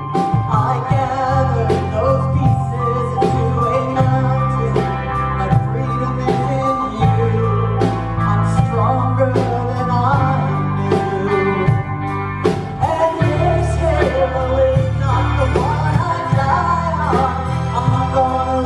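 Live band playing a slow rock song, with a steady bass line, regular drum beats and a singing melody over it.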